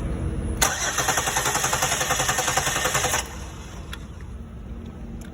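2006 Chevrolet Impala's starter cranking the engine with an even, rhythmic pulse for about two and a half seconds, then stopping abruptly without the engine catching: a crank-no-start, the car having no fuel pressure.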